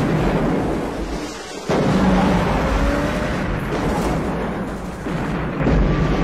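Film soundtrack of large explosions: a long, rumbling blast, a sharp new blast just under two seconds in, and another near the end.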